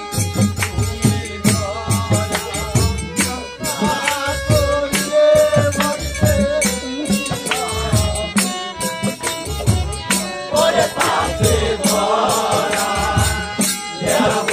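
Live Bengali bicched folk song: singing over a barrel drum beating a steady rhythm, with clicking, jingling percussion. From about ten seconds in, a group of voices sings together in chorus.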